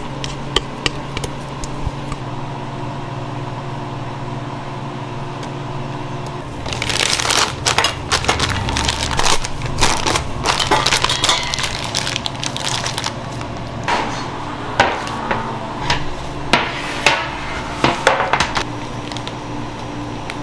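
A disposable plastic piping bag crinkling and crackling as gloved hands handle it and lift it from its steel holder: a dense stretch of crinkling from about a third of the way in, then several separate sharp crackles. A steady machine hum runs underneath.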